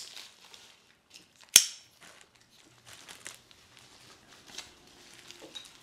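Product packaging being handled and opened: rustling and crinkling with small clicks, and one sharp, loud snap about one and a half seconds in.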